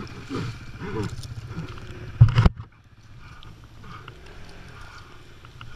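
Yamaha Raptor 700 sport quad's single-cylinder engine running, with a short, loud burst about two seconds in, after which the sound is quieter.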